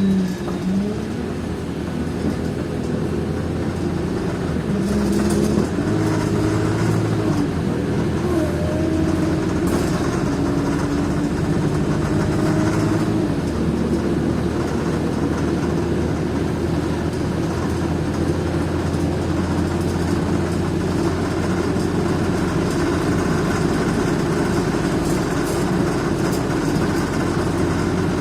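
Wright Eclipse single-deck bus running, a steady engine and drivetrain sound with a higher whine that wavers up and down in pitch; this is the strange noise the recording was made to capture.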